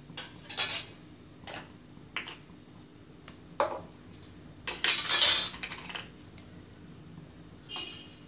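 Metal kitchen utensils clinking and scraping against dishes as they are handled: several short knocks, then a longer, louder scraping clatter about five seconds in, and one more clink near the end.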